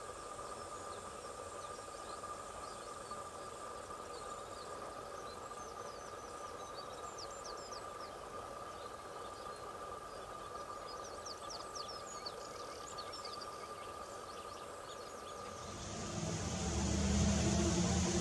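Faint, short bird chirps over a steady high whine and background hiss. About sixteen seconds in, a louder rushing noise with a low drone swells in.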